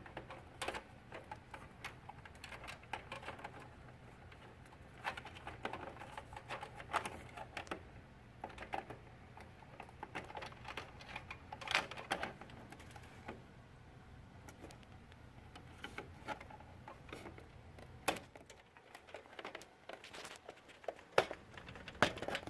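Irregular plastic and metal clicks, taps and scrapes of a multi-card reader being slid into a PC case's front drive bay and locked in with the case's tool-less sliding pins. The sharpest clicks come near the middle and near the end.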